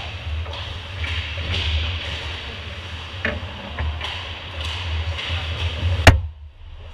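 Ice hockey play heard from behind the goal: skates scraping the ice and sticks clicking over a steady low rumble. About six seconds in there is one sharp, loud impact as players crash in at the net, and right after it the sound drops out suddenly.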